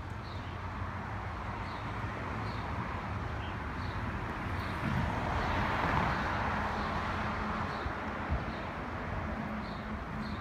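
Outdoor background noise that swells in the middle, with a small bird's short high chirp repeating about once a second.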